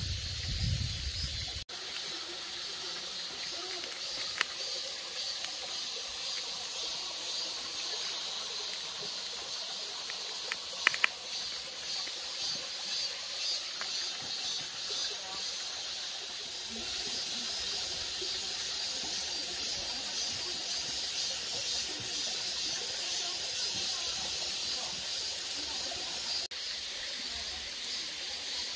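Mountain stream flowing steadily, with cicadas droning in a high, pulsing chorus. A few sharp clicks cut through, the loudest a pair about eleven seconds in.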